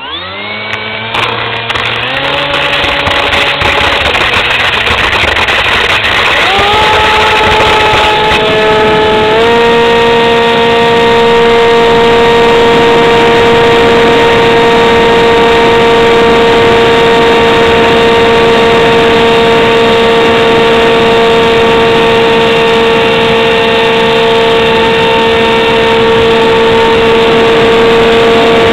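Electric motor and propeller of a Bixler 2 RC foam plane, heard close up from the onboard camera: the motor is throttled up in several steps over the first ten seconds or so, then runs at a steady high-pitched whine with rushing noise for the rest.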